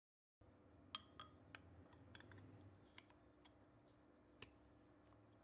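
Faint handling sounds from a black airgun air tube turned in the hands: a handful of light, scattered clicks and clinks over a quiet room hum.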